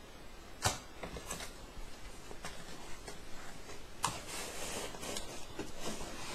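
Packaging being handled during an unboxing: cardboard and plastic wrap rustling and scraping, with a sharp tap about a second in and a longer rustle about four seconds in.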